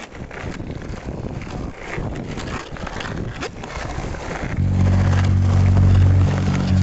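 A skateboard rolling on pavement, a rushing noise with irregular clicks from the wheels. About four and a half seconds in, a loud low held note from the band comes in over it, the start of the first song.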